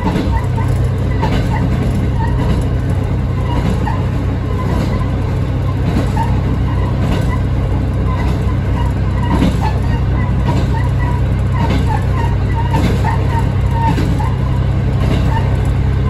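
Diesel railcar running steadily along the line: a steady low engine drone, with occasional clicks of the wheels over the rails.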